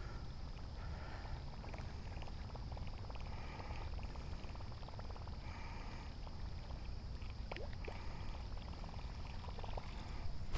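Riverside ambience: a steady low rumble of wind and flowing water under a steady high-pitched drone, with a few faint ticks.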